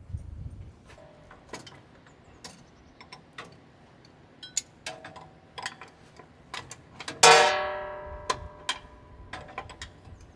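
Metal tools and parts clicking and tapping against each other during combine repair, with one loud metallic clang about 7 seconds in that rings out and fades over about a second.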